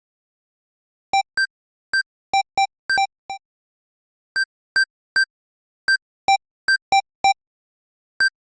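Electronic door keypad beeping as its buttons are pressed: about seventeen short single beeps in an uneven, typing-like rhythm. Most are at one high pitch and some are about an octave lower.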